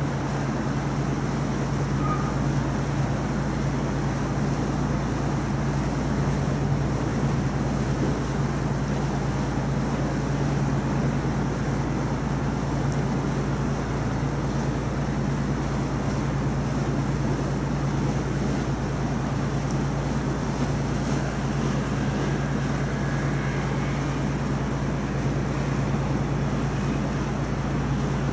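River cruise boat's engine droning steadily while under way, with a constant rushing noise over it.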